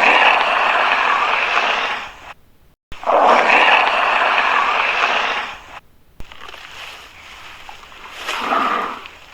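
Monster roar sound effects for a creature called the Korulodon: two long, loud roars of about two and a half seconds each, each ending in a cut to dead silence. A quieter stretch follows, with a shorter cry near the end.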